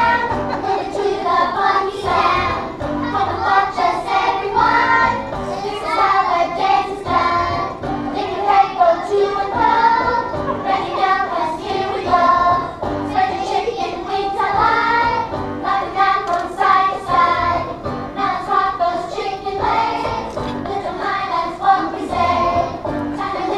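A chorus of kindergarten children singing a song together over musical accompaniment, the singing going on without a break.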